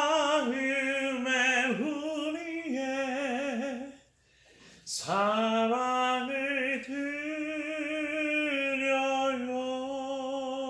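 A single voice sings a Korean praise song without accompaniment, holding long notes with vibrato. It breaks for a breath about four seconds in, then sings one long held note.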